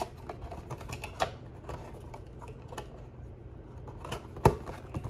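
Cardboard trading-card blaster box being handled and opened on a tabletop: irregular light taps and clicks, with one sharper knock about four and a half seconds in.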